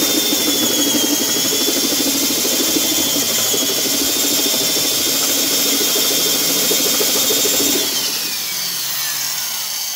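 Black & Decker 1321 half-inch heavy-duty spade handle drill, a 6-amp, 450 RPM motor, running under load as it bores a 2 9/16-inch planetor bit into a wood block, with a steady high motor whine. About eight seconds in the trigger is released and the motor winds down, the whine falling away. The bit is dull and scrapes out only a shallow recess.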